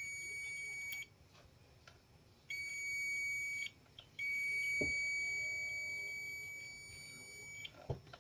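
Digital multimeter's continuity beeper sounding a steady high-pitched beep three times as its probes touch a low-value 3.3-ohm fusible resistor: twice for about a second, then for about three and a half seconds. Two light knocks come from the probes being handled.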